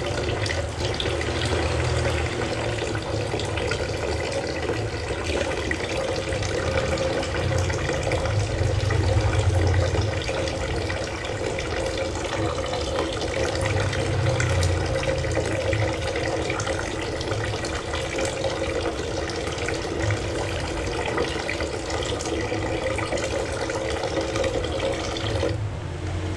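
Kitchen tap running steadily into a stainless steel sink while a stainless steel bowl is scrubbed with a soapy sponge, with faint clicks of the bowl being handled. The water sound changes near the end as the stream falls on the bowl.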